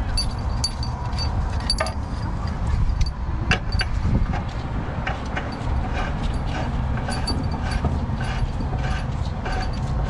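Gloved hand turning and handling threaded metal fittings on a gas meter's piping, giving scattered light metallic clicks and scrapes, with a run of small regular clicks in the second half. A steady low rumble runs underneath.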